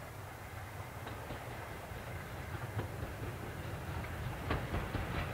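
LMS Ivatt 2MT 2-6-2 tank locomotive approaching bunker first with its coaches: a low rumble that grows steadily louder. A few sharp clicks of wheels over the rails come near the end.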